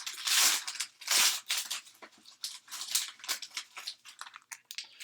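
Wrapper of a Panini Excalibur trading card pack crinkling and tearing as it is pulled open, in irregular rustles that are loudest in the first second and a half.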